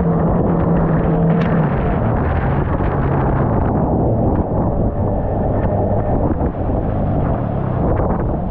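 Outboard motor of a Stabicraft 15.5 aluminium boat running under way through rough, windy water, with wind and water noise over it. The engine note drops to a lower pitch about a second and a half in, as the throttle eases back.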